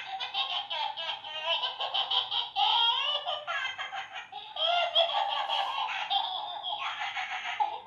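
Battery-powered animatronic toy monkey playing a recorded fit of laughing through its small speaker, thin-sounding with no bass, going on without a break.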